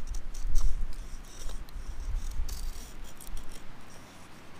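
Knife blade scraping down a stick of very dense, rotted wood in a series of short strokes, an attempt at feathersticking that the wood is too dense and rotted to allow. Wind buffets the microphone in about the first second.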